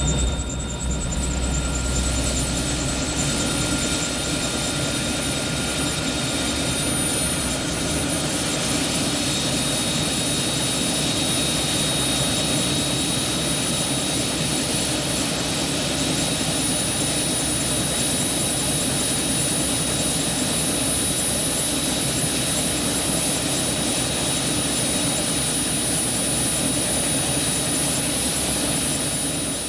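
Steady engine drone with a high whine held at an even level.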